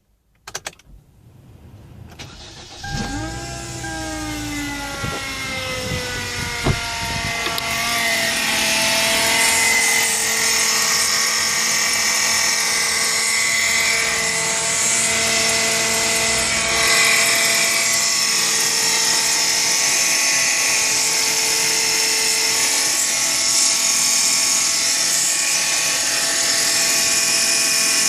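2012 Kia Rio engine starting about three seconds in, its speed falling back from the start-up flare, then idling with a loud, steady, high-pitched whistle that the owner puts down to one of the accessory-drive rollers (a pulley whose bearing whistles wildly).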